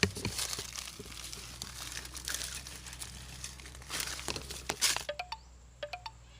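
Crackling, rustling noise with scattered sharp clicks for about five seconds, followed near the end by a handful of short, quick chirps.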